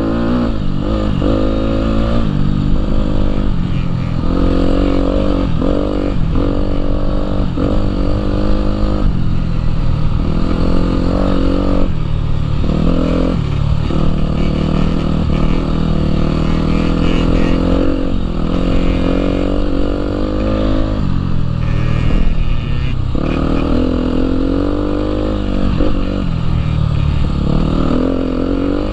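Husqvarna dirt bike engine running under way, its pitch climbing and dropping again and again as the throttle is opened and closed.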